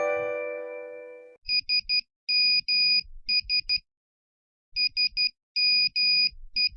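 Classic Nokia SMS text-message tone: a high electronic beep spelling "SMS" in Morse code (three short, two long, three short), played twice with a pause of about a second between. Before it, the last notes of a chiming ringtone melody die away over the first second or so.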